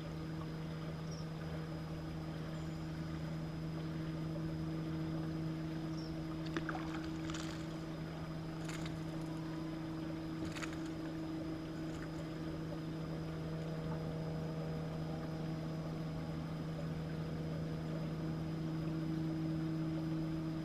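Steady electric hum of a bass boat's trolling motor holding the boat along the shore, with a few faint clicks from about six seconds in to about twelve seconds in.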